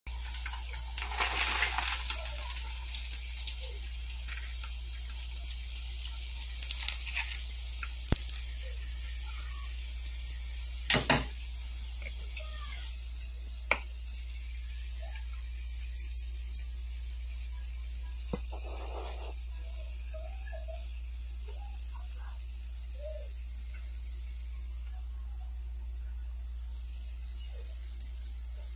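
Hot oil sizzling in a frying pan, a faint steady hiss over a low hum, with a few sharp clicks and a louder double knock about 11 seconds in.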